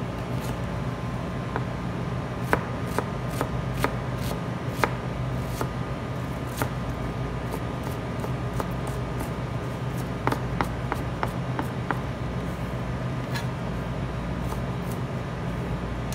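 Chef's knife slicing and chopping an onion on a plastic cutting board: irregular sharp taps of the blade hitting the board, coming quicker for a moment about two-thirds through, over a steady low hum.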